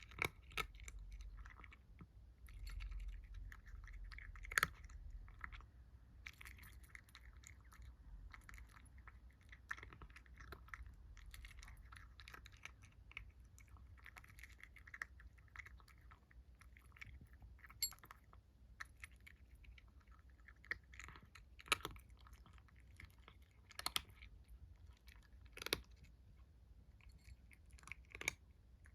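Kitten chewing food: quiet, irregular wet crunching and smacking, with a few sharper crunches now and then.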